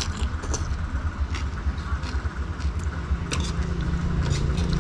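A steady low engine rumble like a nearby vehicle running, with a hum that grows louder about three seconds in. Over it come a few short clicks of a metal spoon against a soup bowl and slurps of soup.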